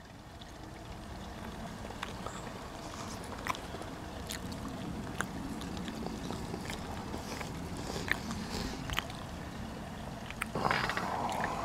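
Steady low outdoor rumble with scattered faint clicks of the camera being handled and turned, and a brief louder rustle near the end.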